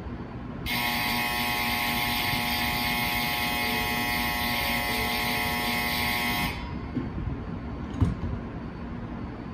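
Platform departure bell ringing steadily beside a stationary Shinkansen train, as a bright, continuous ring of several tones that starts about a second in and cuts off suddenly after about six seconds. A single sharp knock follows near the end.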